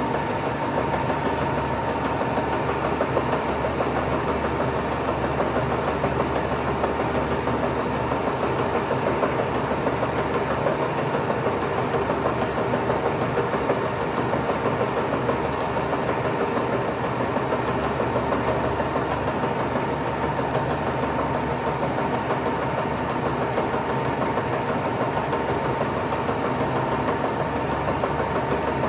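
Turret lathe running steadily under power, a continuous mechanical drone with a thin steady whine on top.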